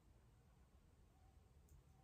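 Near silence: faint low room rumble, with one tiny tick near the end.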